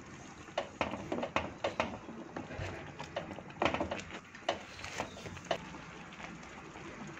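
Thick mango curry simmering in a pan while a spatula stirs it: scattered soft pops and clicks at irregular intervals.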